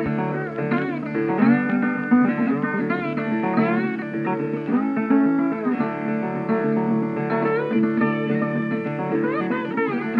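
Instrumental background music led by guitar: plucked notes, many of them sliding in pitch, over a steady lower accompaniment.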